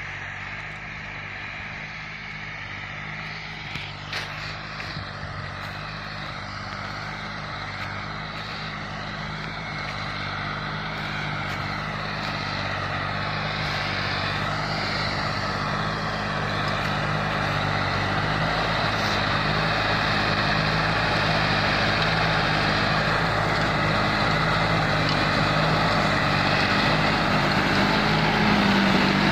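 John Deere 5060E tractor's three-cylinder turbocharged diesel engine working steadily under load while driving a rotavator through the soil, growing steadily louder as the tractor comes closer.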